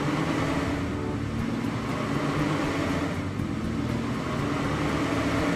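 Animated cartoon car-driving sound effect: a steady engine hum with a rushing noise as small toy-like cars drive along the road.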